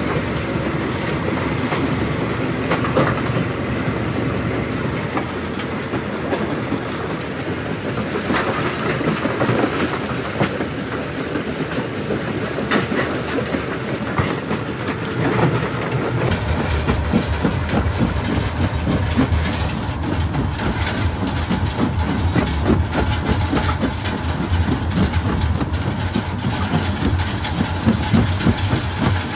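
A belt-driven jaw stone crusher running, with a steady mechanical rumble and irregular clattering and cracking as rock is crushed between its jaws. The low rumble is heavier for roughly the second half.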